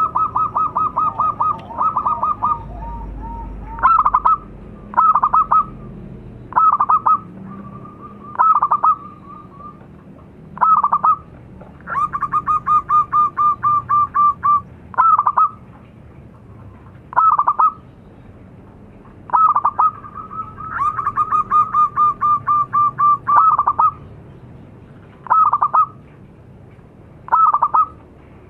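Zebra dove (perkutut) cooing loudly. Three runs of rapid staccato notes, each lasting two to three seconds, are spaced out by single short coos every second or two.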